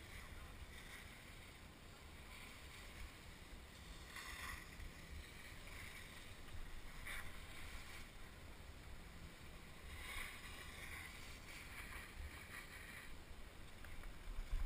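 Skis scraping and hissing over chopped-up piste snow in a few swells during turns, over a steady low wind rumble, heard muffled through a helmet-mounted GoPro's housing.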